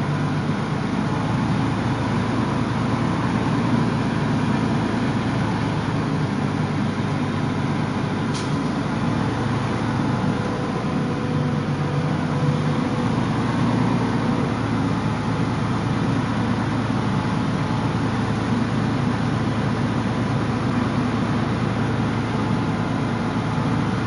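Heavy-haul truck's diesel engine running steadily under the rig as it moves slowly, a constant low hum with no change in pitch.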